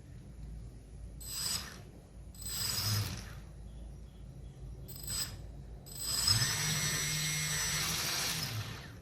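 The small electric motor and gear drive of a homemade RC car whirring in short bursts: three brief spins, then a longer run of about three seconds near the end.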